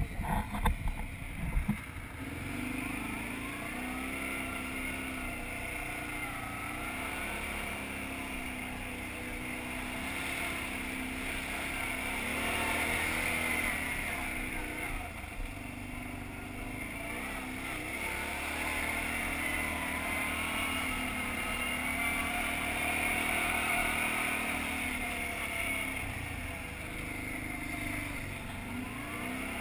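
ATV engine running as it is ridden, its pitch rising and falling with the throttle, under a steady hiss. A few knocks come in the first couple of seconds.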